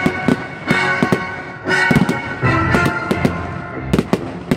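Fireworks going off in a rapid, uneven series of sharp bangs and pops, over the display's music playing steadily underneath.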